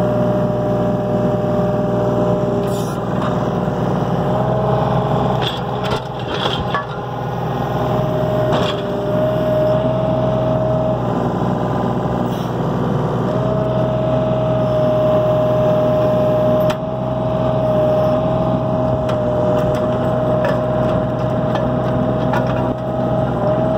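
Yanmar mini excavator's diesel engine running steadily under the cab, with a whine that drops out and returns several times as the hydraulics work. A few sharp clanks come from the chain and the dragged steel I-beam.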